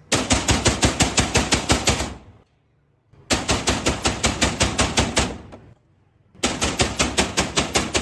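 Three bursts of automatic gunfire, each a little over two seconds of rapid, evenly spaced shots at about nine a second, with a gap of about a second between bursts.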